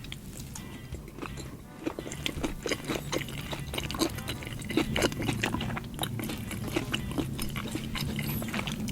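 Close-miked chewing and biting of a chicken burger with sambal petai: a dense run of short mouth clicks and smacks.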